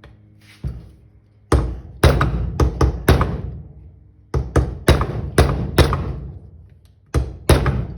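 Hammer blows driving a stuck pivot pin out of a Suzuki RV90 springer front fork: more than a dozen sharp strikes in quick groups of two to four, each ringing briefly.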